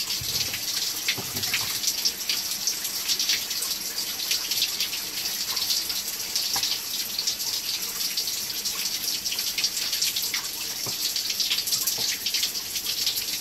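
Water running steadily and splashing, with a few faint clicks.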